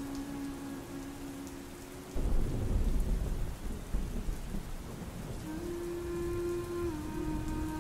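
Rain ambience with a low rumble of thunder breaking in about two seconds in, under quiet held musical tones that shift pitch near the end.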